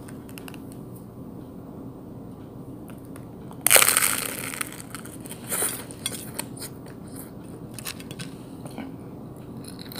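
A crunching bite into a fried banana turon, its crisp sugar-glazed spring-roll wrapper cracking loudly about four seconds in. Smaller crunches follow as it is chewed.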